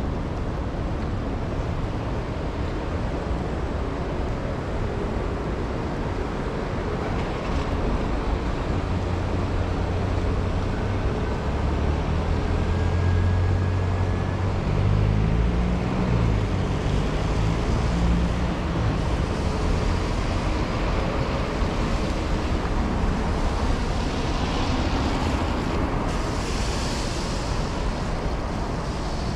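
Steady city street traffic on wet roads, a constant hiss of tyres and engines. A vehicle's low engine rumble swells through the middle and fades again, and a higher tyre hiss passes near the end.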